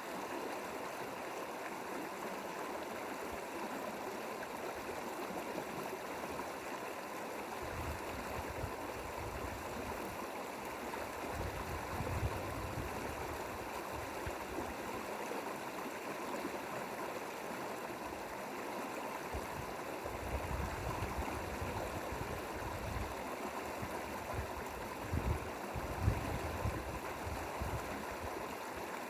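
Mountain valley stream flowing, a steady continuous rush of water. From about eight seconds in, low irregular rumbles come and go beneath it.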